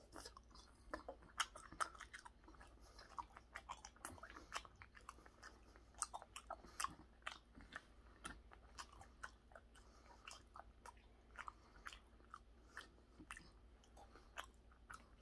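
Faint mouth sounds of a man chewing raw tuna sashimi: soft, irregular clicks of chewing, several a second.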